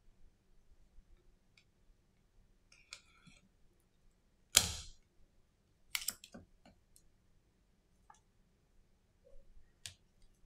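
Small clicks and handling noises from hands working the parts of an opened iPhone SE 2020 during a battery removal, with one louder, sharp crackle about halfway through and a few quicker clicks just after it.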